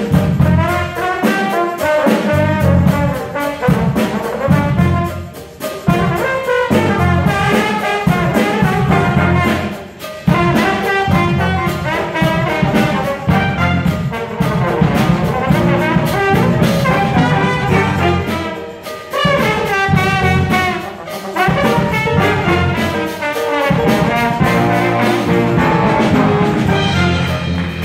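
School jazz band playing, brass to the fore: trombones and trumpets with saxophones over low bass notes, a trombone standing out front. Short dips between phrases come about a quarter, a third and two thirds of the way through.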